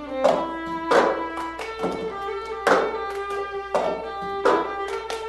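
Violin playing a fiddle tune in held bowed notes, with a plastic cup knocked on a wooden tabletop as rhythm accompaniment, in the manner of the cup game: sharp knocks about every three-quarters of a second.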